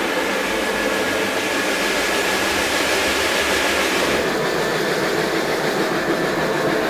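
Carpet scrubbing machine running over a rug soaked in foam: a steady motor hum with wet hiss from the scrubbing. About four seconds in the sound shifts and the high hiss drops away.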